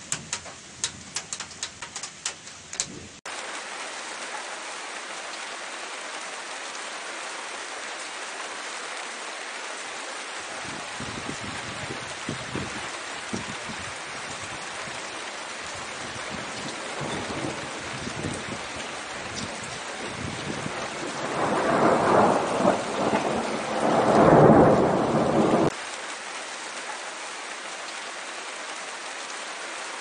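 Steady rain with thunder. Sharp drip taps over the rain in the first few seconds give way abruptly to an even downpour hiss. Thunder rumbles in from about ten seconds in and swells to two loud peaks past the middle, which cut off suddenly, leaving the steady rain.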